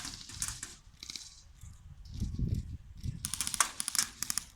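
Airsoft BB guns firing in rapid bursts, a fast clatter of shots: a short burst at the start and a longer one in the last second and a half, with a low rumble about two seconds in.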